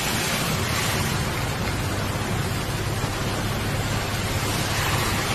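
Muddy floodwater rushing in a steady, loud roar of noise with a deep rumble, no breaks or separate splashes.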